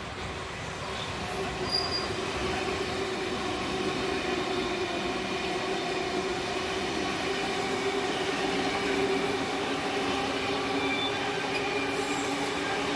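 A CityRail double-deck electric suburban train passing close, with a container freight train rolling by on the farther track: steady rail rumble carrying several steady whining tones that grow stronger as the passenger train goes by.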